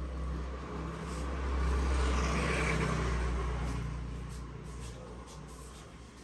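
A motor vehicle passing by, its low engine rumble swelling to a peak about two seconds in and then fading away.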